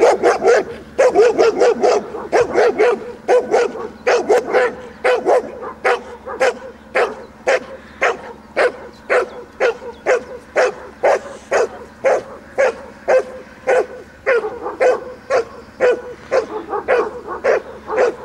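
German shepherd barking loudly and continuously, about two barks a second, the sustained bark of protection work.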